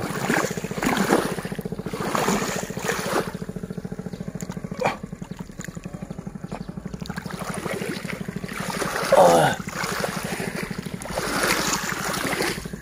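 Hands splashing and squelching through muddy rice-paddy water while feeling for fish, in irregular bursts. A steady low engine hum runs underneath.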